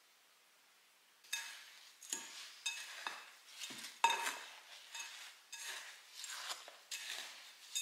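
A wooden spoon stirring a crumbly cocoa mixture with condensed milk in a glass bowl: repeated scraping strokes, about two a second, starting after a second of near silence.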